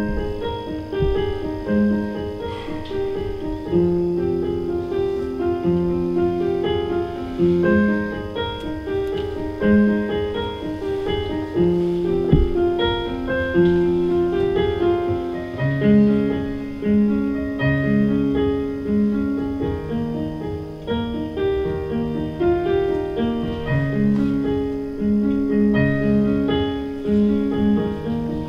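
Piano music: a flowing melody of single notes over a steady, repeating accompaniment.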